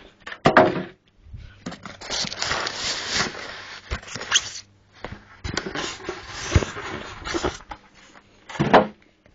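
Styrofoam packing blocks being handled and pulled out of a cardboard box: irregular rubbing and scraping, with a few knocks and two short squeaks, one near the start and one near the end.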